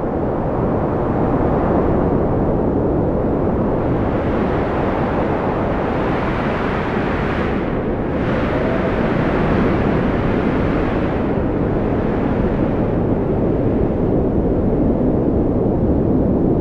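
Strong wind blowing in gusts, a loud low rush that swells and eases, with a faint wavering howl.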